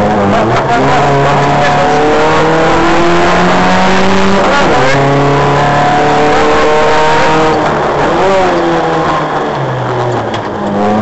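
Competition car's engine heard from inside the caged cabin, accelerating hard through the gears. The revs climb, drop sharply at a gear change about four and a half seconds in, and climb again. They fall around eight seconds in, then rise again near the end.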